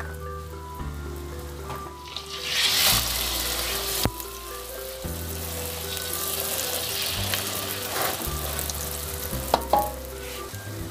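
Egg-and-scallion omelette batter sizzling in hot oil in a wok, the sizzle swelling about two seconds in, with a few sharp knocks of a metal spatula against the wok. Background music plays under it.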